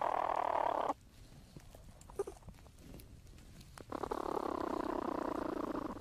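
Young platypuses in their nesting burrow, picked up by a small microphone inside the chamber. There are two rough, buzzing bouts: the first ends about a second in, and the second starts about four seconds in and lasts about two seconds, with faint clicks in between.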